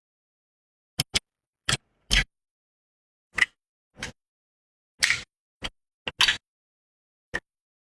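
About a dozen short, sharp clicks and knocks at irregular intervals, with dead silence between them.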